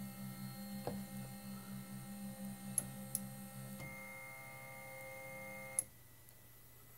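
MendelMax 1.5 3D printer's z-axis stepper motor turning its threaded rod as the z-axis homes: a steady pulsing motor hum, then a higher whine for about two seconds. It stops with a click about six seconds in, leaving a faint hum.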